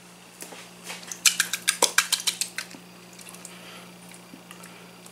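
Metal utensil clinking against a stainless steel cooking pot while chicken, condensed soup and noodles are mixed. A quick run of about eight clinks starts a second in and lasts about a second and a half, with one heavier knock in the middle, then a few light ticks.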